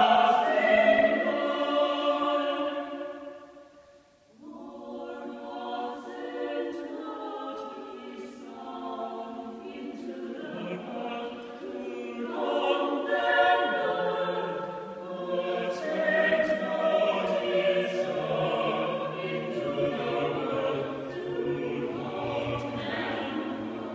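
Small mixed choir singing several voice parts in harmony. A loud chord dies away to a short pause about four seconds in, then the choir comes back in more softly and sings on.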